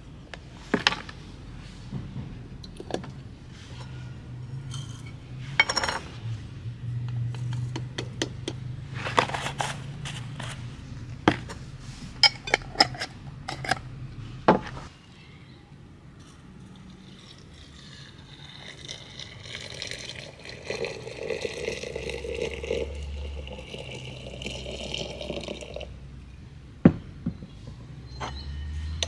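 Glass jars, jar lids and a steel tea infuser clinking and tapping as dried rose petals and loose tea leaves are tipped into a glass teapot. In the second half, liquid pours steadily into the teapot, and there is a single sharp clink near the end.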